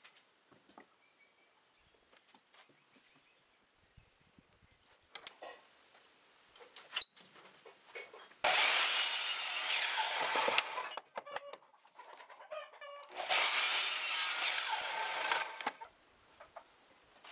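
A rooster crowing twice, each crow about two seconds long and loud, about four and a half seconds apart. Light taps and clicks of wooden blocks being handled come before and between the crows.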